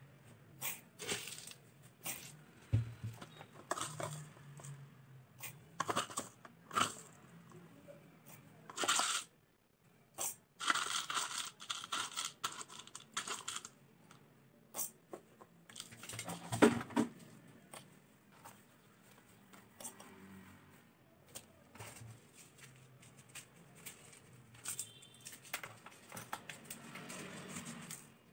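Whole dry spices (coriander, cumin and fennel seeds, black peppercorns, cinnamon and cloves) being dropped and poured into an empty stainless steel mixer-grinder jar: a series of clicks and short rattles of seeds on steel, with a longer run of pouring seeds about ten to thirteen seconds in.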